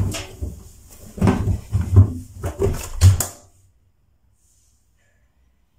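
A front-loading washing machine being loaded in a hurry: a quick, irregular series of thumps and knocks from the door and drum, with fabric rustling as clothes are stuffed in. It stops abruptly about three and a half seconds in.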